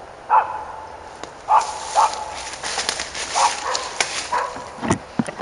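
A dog barking repeatedly, about seven short barks spaced irregularly, over a background hiss, with two sharp knocks near the end.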